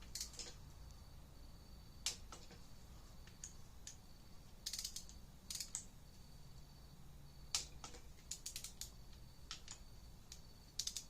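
Scattered sharp metallic clicks of a ratcheting torque wrench working the oil pump's 12 mm bolts down to 16 foot-pounds, some coming in quick runs of several clicks.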